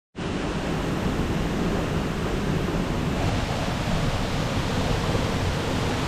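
Waterfall water crashing and spraying close to the microphone: a steady, dense rush of water.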